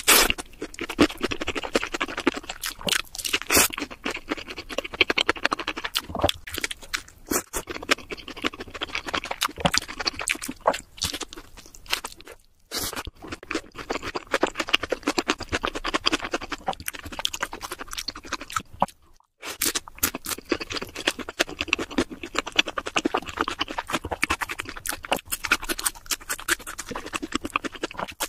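Close-miked crunching and chewing of crispy fried food, a breaded fried chicken burger and french fries, as a dense run of irregular crackles. There are two brief pauses, about a third and two-thirds of the way through.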